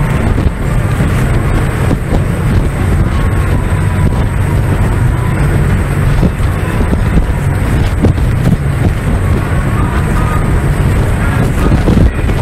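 Wind buffeting the microphone over the steady engine rumble of a fast open-deck tour boat running at speed across the water.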